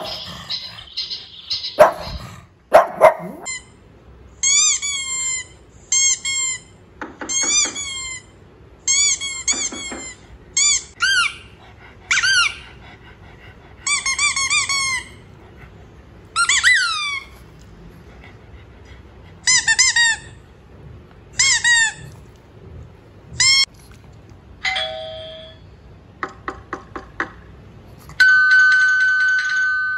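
A squeaky toy squeaked over and over in short bunches of two to four squeaks, each squeak rising and then falling in pitch. Near the end an electronic doorbell chime rings and slowly fades.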